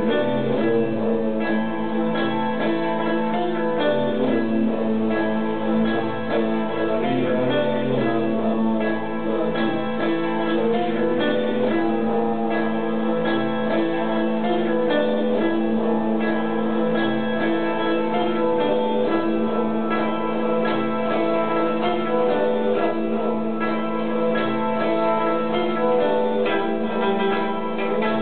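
Tamboura, a long-necked plucked lute, played in a stream of quick plucked notes over a steady unbroken drone.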